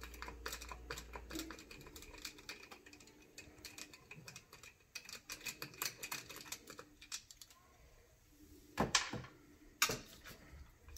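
Many light, irregular clicks and small rattles of a wrench working a wheel nut loose on an RC truck's wheel. Two louder knocks come near the end.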